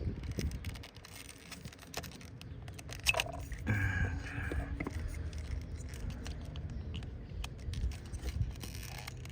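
Hands working plastic K24 coil-pack electrical connectors and their wiring: scattered light clicks, scrapes and rattles, with one sharper click about three seconds in.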